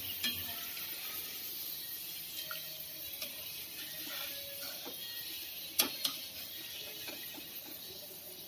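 Grated taro shreds frying in hot mustard oil in a kadhai: a steady sizzle. A slotted spoon clicks against the pan a few times, the loudest about six seconds in.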